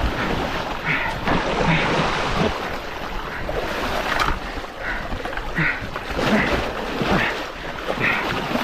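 Sea surf washing along the shore, with wind buffeting the microphone.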